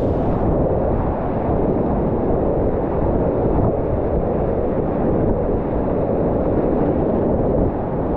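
Steady rush of river whitewater through a rapid, heard muffled with the high end cut away, as if the microphone were under water or covered.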